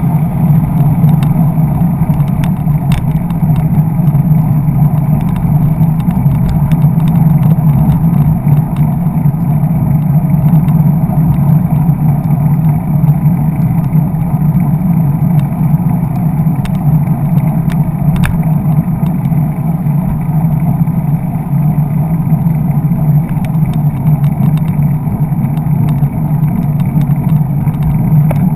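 Steady wind rumble and road noise on a handlebar-mounted camera as a bicycle rides along beside traffic, with a few light clicks.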